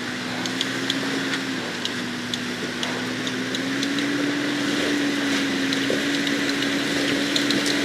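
Off-road vehicle's engine running steadily under load, its pitch rising slightly in a couple of small steps, with scattered sharp clicks over it.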